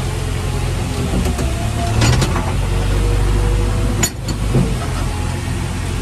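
JCB 3DX backhoe loader's diesel engine running steadily, heard from inside the cab, with a faint whine that rises and falls. Two sharp knocks or clanks come about two and four seconds in.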